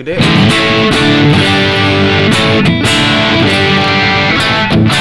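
Squier Stratocaster Affinity electric guitar played through a Yamaha THR10X amp on a high-gain distortion preset: a loud distorted riff with a few short breaks.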